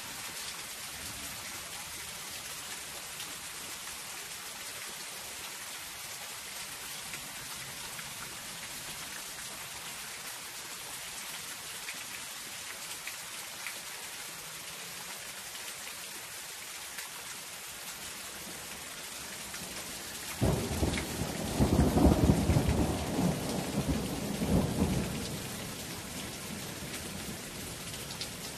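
Steady rain falling on a zinc sheet roof, with a deep rumble of thunder starting about two-thirds of the way in, louder than the rain, that swells and fades over about five seconds.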